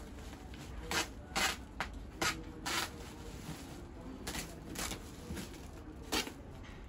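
Woven plastic sack rustling and scraping in short, irregular strokes as it is worked open by hand at its stitched top.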